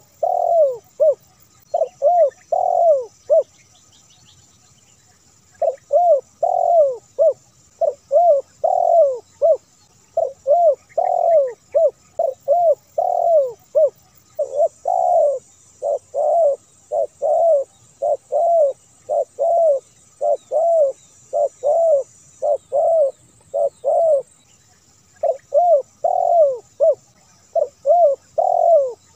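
Spotted dove cooing: phrase after phrase of low, arched coo notes in quick succession, with a pause of about two seconds near the start and a shorter one near the end.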